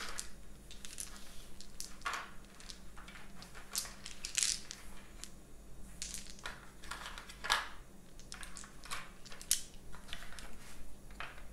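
Small plastic game dice and their packaging being handled: scattered crinkling rustles and light clicks at irregular intervals.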